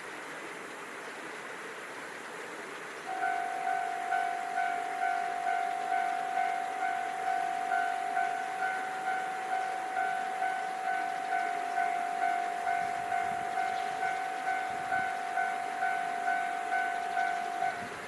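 Japanese railway level-crossing warning bell starts ringing about three seconds in: a loud electronic two-tone ding, pulsing about twice a second without a break, over steady background noise.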